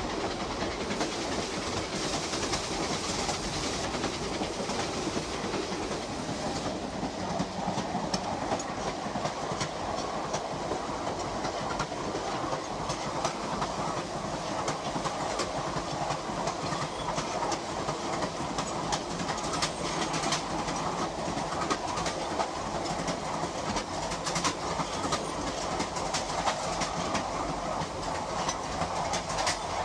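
Steady rumbling noise with many rapid, irregular clicks, played from an old sound-effects record.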